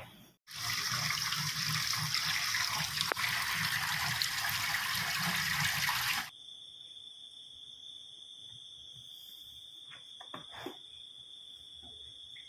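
Water running onto sliced green vegetables in a plastic colander as they are rinsed by hand. The water stops suddenly about six seconds in. After that there is only a faint steady high whine and a few light knocks.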